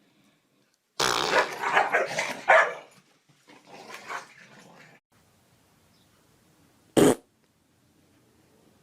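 A dog growling and barking in a loud burst about a second in, then more quietly, with one short sharp sound near seven seconds in.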